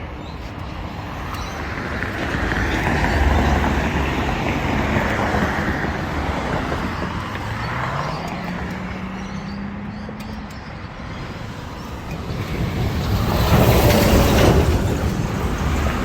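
Yamaha XT 660 R's single-cylinder four-stroke engine and exhaust running. The engine note rises in pitch in the middle, and the sound swells louder about three seconds in and again near the end.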